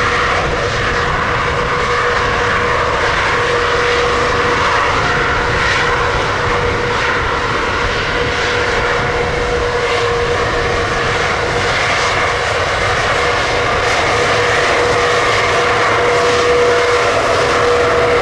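Jet airliner's engines running, a loud, continuous noise with a steady tone held under it, growing slightly louder near the end.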